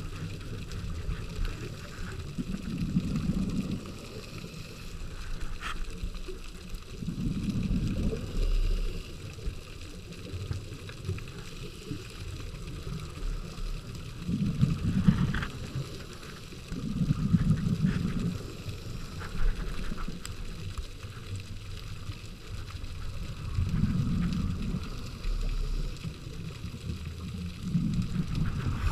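Scuba diver's breathing heard underwater: bursts of exhaled bubbles from the regulator rumble for about a second at a time, every few seconds, over a steady hiss, with a few faint clicks.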